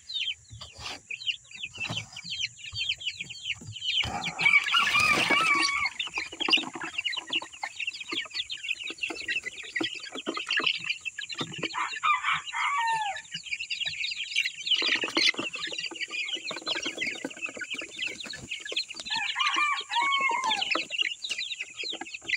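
A flock of young chickens peeping and chirping nonstop in high, short calls. There are a few longer calls that fall in pitch, about twelve and twenty seconds in, and the loudest stretch comes about four seconds in.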